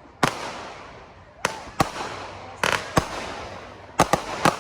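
Consumer aerial fireworks bursting: a string of about eight sharp bangs, several coming in quick pairs, each trailing off in a fading rumble.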